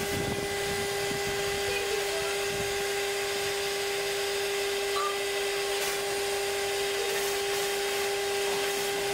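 Wet-dry vacuum running with a steady whine, its hose held at the water surface sucking up duckweed and water.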